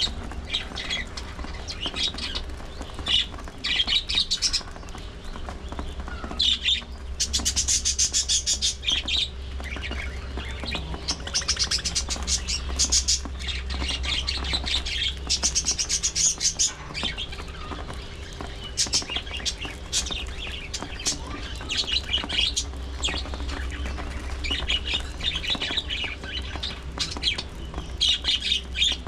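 A flock of budgies chattering: dense, rapid chirps and warbles with occasional squawks, over a steady low hum.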